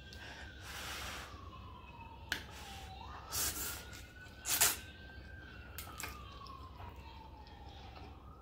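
Noodles being slurped in short noisy pulls, loudest about three and a half and four and a half seconds in. Behind them a faint siren wails, sliding slowly down and up in pitch.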